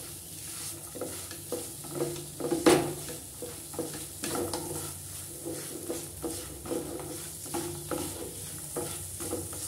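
Silicone spatula stirring and scraping biscuit paste and khoya around a nonstick pan, in repeated strokes about twice a second, over a steady high hiss.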